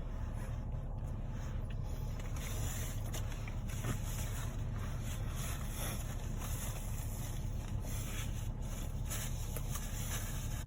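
Steady low rumble and hiss of a car idling, heard from inside the cabin, with a few faint clicks.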